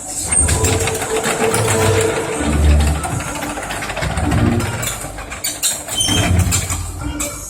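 Sany SY75C mini excavator's diesel engine running as the machine works through its moves, over loud music with a low beat about once a second.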